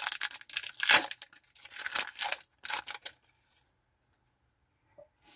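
Foil wrapper of a Pokémon card booster pack being torn open by hand, a run of crackly rips and crinkles that stops about three seconds in.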